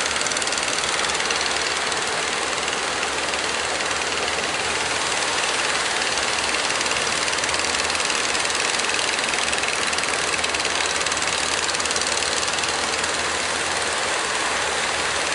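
Fishing boat engines running steadily under an even hiss of breaking surf.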